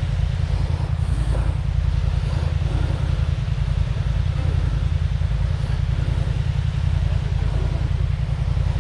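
ATV engine running steadily, a low pulsing rumble.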